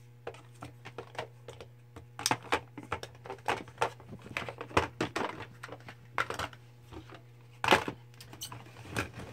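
Plastic makeup palettes and compacts being handled, opened and shut: a run of irregular small clicks and clacks, the loudest one a little before the end, over a faint steady low hum.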